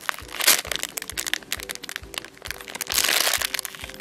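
Clear plastic packaging bag crinkling and crackling as hands squeeze a squishy cake toy inside it, loudest about half a second in and again around three seconds, over quiet background music.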